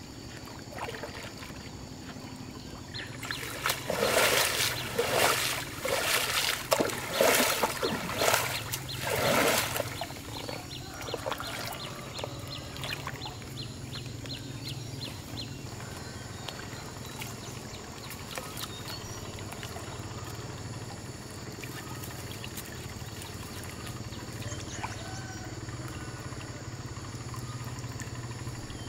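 Pond water splashing and sloshing as a bamboo-framed push net is shoved and lifted through it, a run of heavy splashes about four to ten seconds in. After that come lighter dripping and trickling, over a low steady hum.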